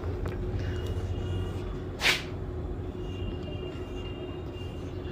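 Marker pen drawing lines on a whiteboard, with faint thin squeaks, over a steady low rumble. There is one short sharp scrape about two seconds in.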